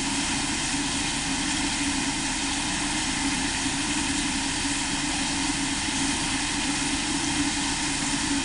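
Steady machine drone with a strong low hum and a faint thin tone above it, unchanging in level.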